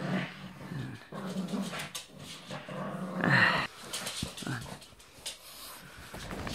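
Pugs growling and grunting in play as they tug at a large plush toy dog, with scuffling on the floor; the loudest outburst comes about three seconds in.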